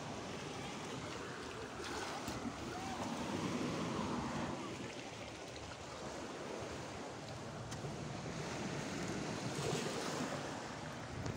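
Sea waves washing against shoreline rocks, with wind on the phone microphone. The surf swells louder a few seconds in and again near the end.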